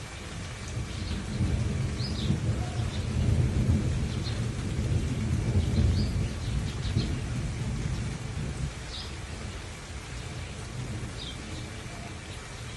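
Steady rain with a long roll of thunder that swells in about a second in, rumbles deep for several seconds and slowly fades. Short high chirps come through every second or two.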